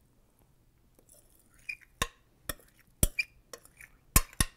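A metal spoon clinking and scraping against a glass mixing bowl as a thick cheese-and-meat filling is pushed out of it. There is a run of sharp clinks starting about two seconds in, coming faster near the end.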